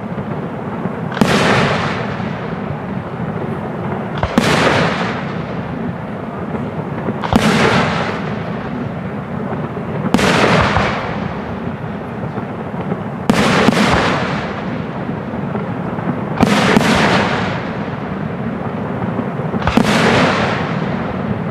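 Aerial firework shells bursting overhead: a sharp bang about every three seconds, once two in quick succession, each followed by a rumbling echo that dies away over a second or so.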